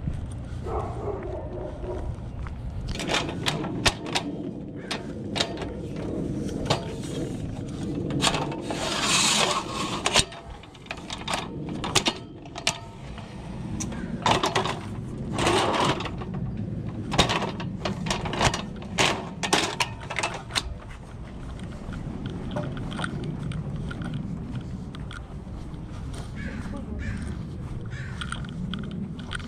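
Aluminum ladder being climbed down and handled: irregular metal clanks and knocks with a couple of longer scrapes, over a steady low rumble. The clanking dies down after about twenty seconds.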